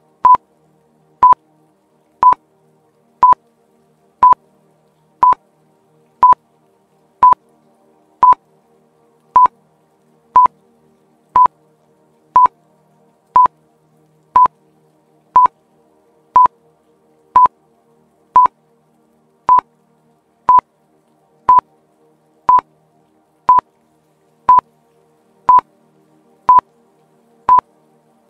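Countdown timer sound effect: a short beep at one fixed pitch, exactly once a second, over faint background music.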